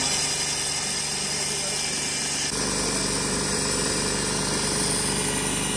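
A motorised machine running steadily, with a constant hum and a rattling texture that shifts about two and a half seconds in.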